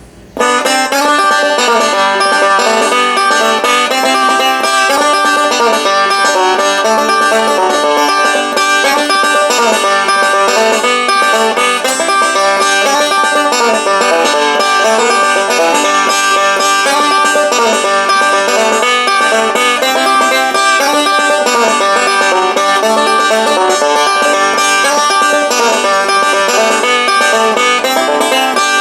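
Banjo-led bluegrass music, fast plucked notes with a steady beat.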